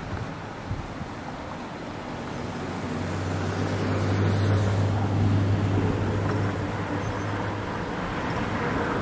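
Wind on the microphone, with a low, steady engine-like hum that swells in about three seconds in and fades out near the end.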